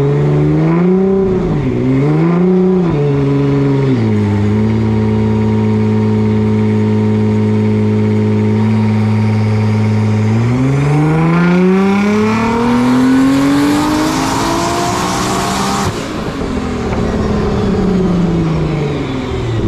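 Car engine on a chassis dyno: blipped a few times, held at a steady rev, then taken through one long, smooth pull climbing to high revs with a rising hiss. It cuts off sharply near the top, and the revs fall away.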